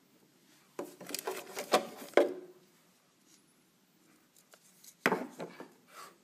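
Handling noise: two bursts of clicking, knocking and rubbing, the first about a second in and the second about five seconds in.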